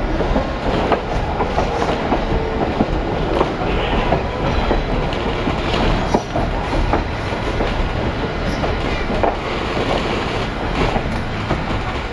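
Passenger train rolling along the track, heard from aboard: a steady rumble of the coach with irregular clicks and knocks from the wheels over the rails.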